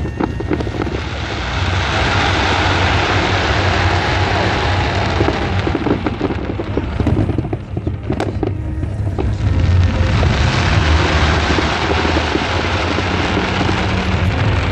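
Fireworks crackling and popping densely over a low rumble. The crackle eases about seven seconds in, a few sharp bangs follow, and it builds again.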